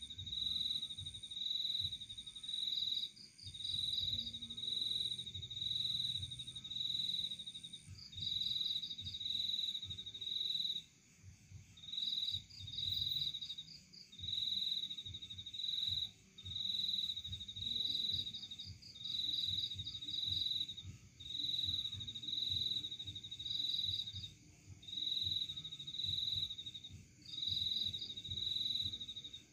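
Insects chirping steadily: short pulsed chirps about once a second, with a quicker, higher trill every few seconds, over a low rumble.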